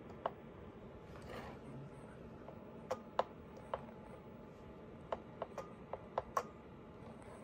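Small plastic toggle switches on an RC car transmitter being flicked: about ten sharp clicks, a few singly and a quick run of them in the second half.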